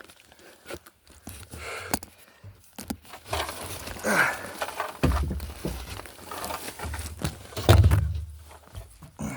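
Someone clambering across attic joists: scattered knocks and footsteps, rustling of fiberglass insulation, and heavy low thumps of weight shifting, loudest near the end.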